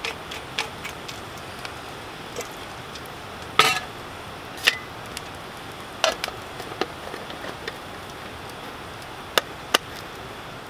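Wood campfire crackling: a steady hiss with scattered sharp pops and clicks, a few louder ones about four, five, six and nine seconds in.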